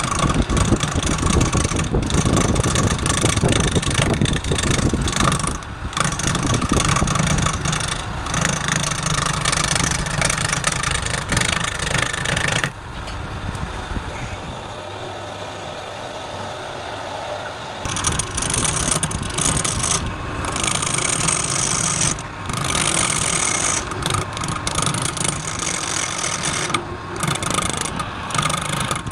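Wood lathe running with a turning tool cutting into the spinning wood, a steady rough cutting noise. The cutting sound drops away for a few seconds about halfway through, then resumes.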